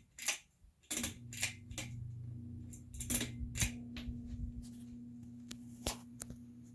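Hampton Bay Littleton ceiling fan's motor humming steadily, with about nine sharp, irregular clicks and rattles over it; the hum cuts out briefly about half a second in, then comes back. The fan is a noisy one.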